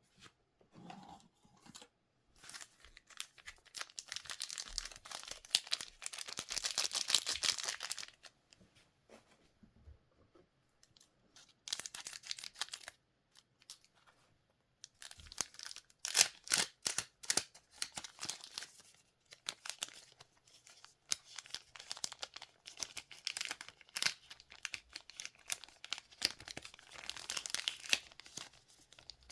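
Goddess Story Flower Girl trading-card packs being torn open and their wrappers crinkled by hand. The sound comes in several bursts of tearing and crinkling with short pauses between them.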